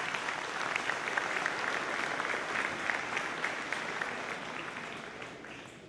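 Audience applauding, steady at first and then fading away near the end.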